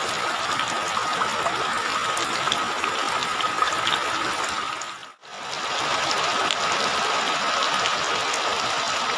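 Heavy rain pouring steadily, a constant rush of water with scattered sharp drop ticks. It cuts off abruptly about five seconds in and starts again at once.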